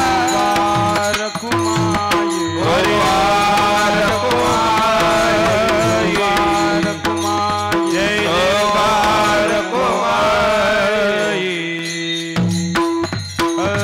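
Kirtan devotional music: a voice sings a slow, ornamented melody with long gliding notes over steady held harmonium notes and hand-drum strokes. The singing thins out near the end, leaving the held notes and drum beats.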